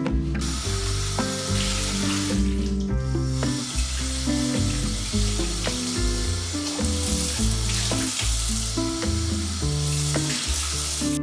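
Water running steadily from a kitchen tap, briefly easing off about two and a half seconds in, over soft background music.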